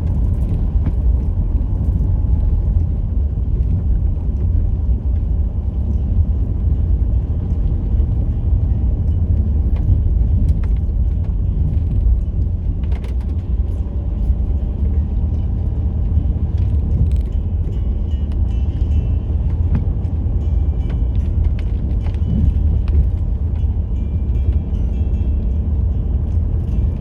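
Low, steady rumble of a Jeep Liberty 2.8 CRD's four-cylinder turbodiesel driving off-road, with a few sharp knocks from the vehicle over rough ground.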